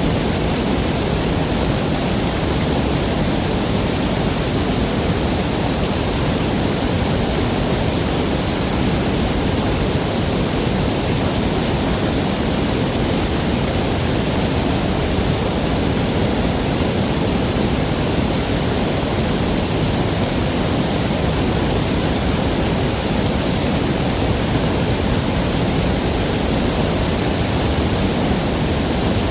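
Waterfall's falling water, a loud, steady, unbroken rush with no changes.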